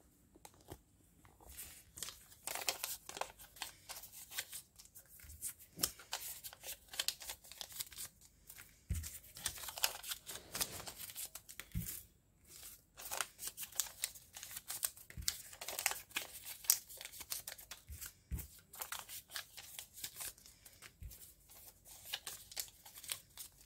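Paper being folded and handled by hand: an irregular run of crinkling and rustling, with a few brief pauses.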